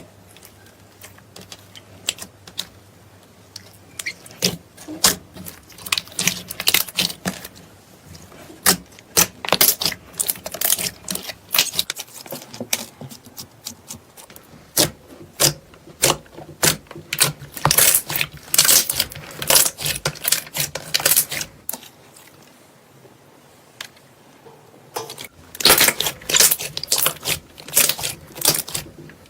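Slime being squished and stretched by hand, giving runs of quick sticky clicks and pops, with a couple of short pauses.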